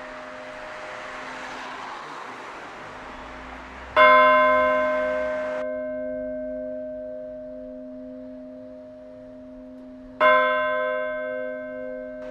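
A church bell struck twice, about six seconds apart, each stroke ringing on and slowly fading, with the bell's low hum already sounding at the start. A steady hiss of background noise runs under the first stroke and stops abruptly.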